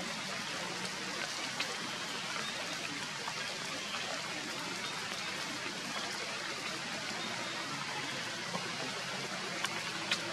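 Steady hiss of rain falling on forest foliage, with a couple of sharp ticks near the end.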